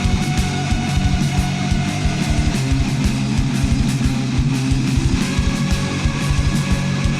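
Heavy metal music with distorted electric guitars over fast, driving drums.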